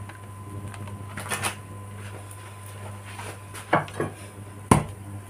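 A few short knocks and clatters of kitchen utensils against a frying pan, the sharpest near the end, over a steady low hum.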